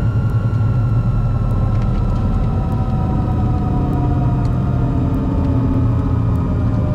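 Aerostar 700's twin piston engines and propellers droning steadily, heard from inside the cabin, with their tones slowly falling in pitch as they wind down.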